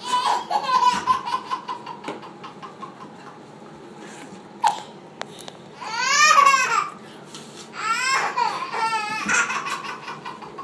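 A baby girl laughing in hysterics, in several bursts, the loudest about six seconds in.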